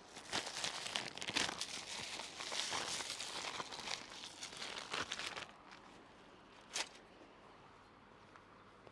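Crinkling and tearing of dry material being handled, dense and crackly, stopping about five and a half seconds in; a single sharp click follows a little later.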